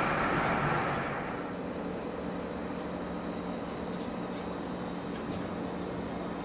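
Amtrak train passing on the Northeast Corridor, its loud rail noise dying away over the first second and a half, then leaving a quieter steady hum.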